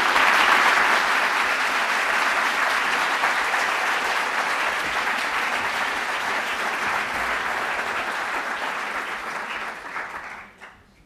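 Audience applauding, loudest at the start and slowly fading, dying away near the end.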